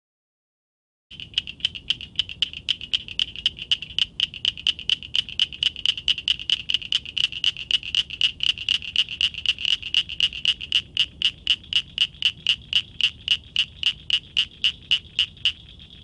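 Northern cricket frog (Acris crepitans) calling: a long series of sharp, high clicks at about four a second, starting about a second in.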